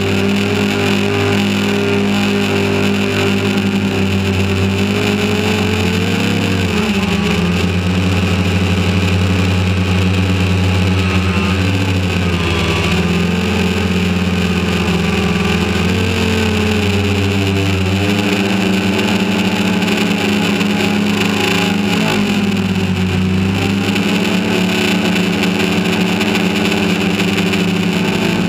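Quadcopter drone's electric motors and propellers buzzing steadily, close to the microphone; the pitch dips and rises again several times as the motors change speed.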